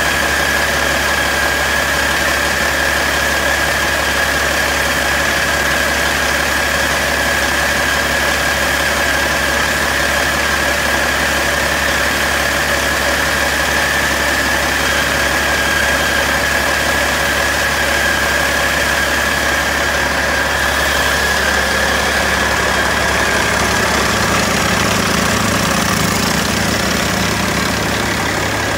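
Caterpillar C12 inline-six diesel engine running steadily at idle on a test stand, with a steady high whine above the engine note.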